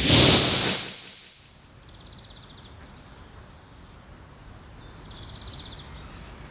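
A loud rushing whoosh for about the first second, then small birds chirping in short, rapid trills a few times over a faint outdoor ambience.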